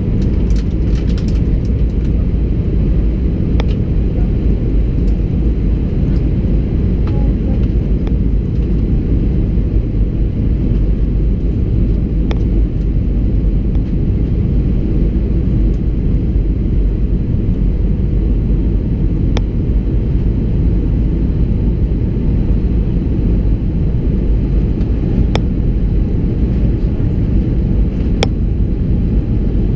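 Steady, loud cabin rumble inside an Airbus A320-200 in flight, the engines and airflow heard through the fuselage, with a few faint ticks and rattles from the cabin scattered through it.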